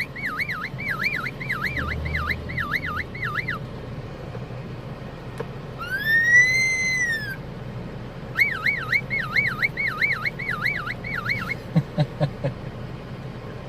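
Cockatiel whistling an imitation of a police siren: a fast wavering whistle, about three swings a second. Midway comes one long rising-and-falling whistle, then the wavering siren call again.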